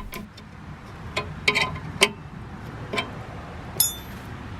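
Scattered metallic clicks and clinks of a hand tool tightening 3/8-inch fittings on an RV water heater's pilot and thermocouple tubing assembly, with one short high ringing ping near the end.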